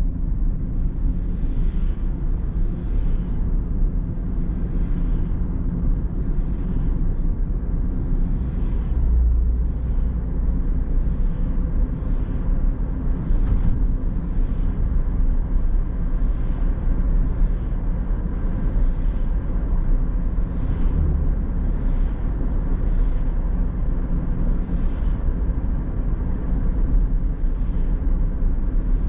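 Car driving along a road: steady low rumble of tyres and engine.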